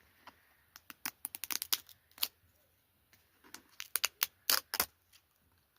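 Short clicks and taps from a container of Alani Nu protein coffee being shaken and handled, in two quick clusters: one about a second in and another around four seconds.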